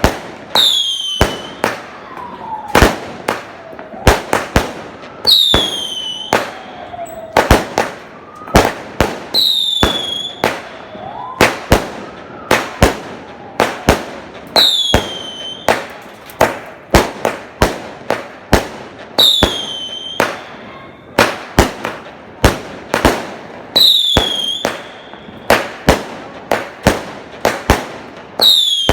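Fireworks going off in a rapid string of sharp bangs, one or two a second, with a short high whistle that falls in pitch recurring every four to five seconds.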